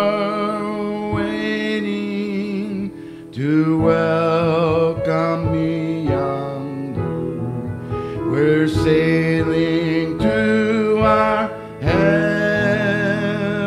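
A man singing a gospel song with piano accompaniment. He sings in long held phrases with a wide vibrato, taking a fresh phrase about every four seconds.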